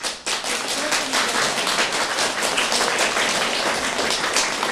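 A room of schoolchildren applauding: many hands clapping at once, fast and uneven.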